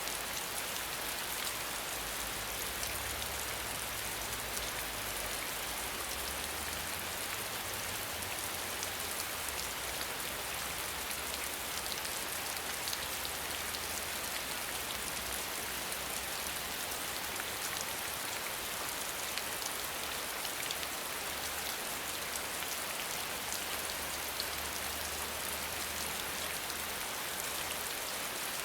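Steady rain falling: an even hiss with many individual drops ticking through it.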